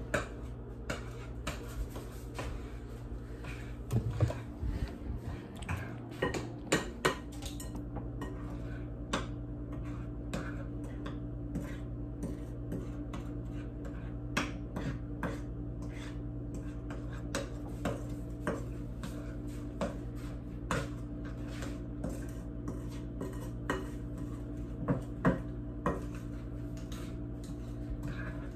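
A spoon stirring cookie dough in a glass mixing bowl, clinking and scraping against the glass in irregular strokes, with a burst of heavier knocks about four seconds in, over a steady low hum.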